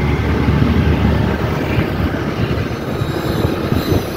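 Wind and road noise from riding a motor scooter in traffic: a dense low rumble that flutters rapidly on the microphone.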